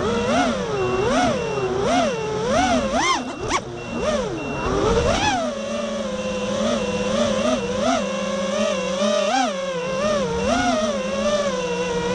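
FPV racing drone's brushless motors whining, the pitch rising and falling over and over as the throttle is worked through acro manoeuvres. A brief rattle about three and a half seconds in, then a steadier whine with smaller swings.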